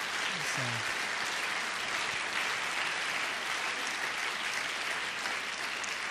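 Congregation applauding steadily, a dense even clapping from many hands.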